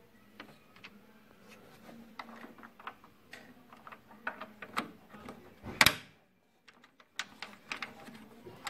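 Scattered small clicks and knocks of HP P3005 laser printer parts being handled by hand during a gear set replacement, with one much louder sharp knock about six seconds in.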